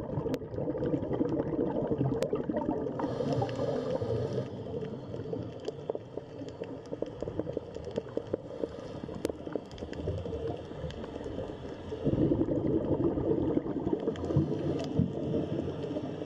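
Underwater recording: muffled bubbling and gurgling water with fine crackling clicks, growing louder for a while about twelve seconds in.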